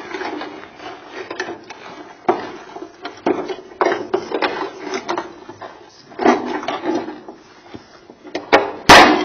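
A fan being yanked and hung on where it hangs from brickwork: repeated knocks, scrapes and rattles as it is wrenched back and forth, then a loud sharp crack near the end as it snaps free.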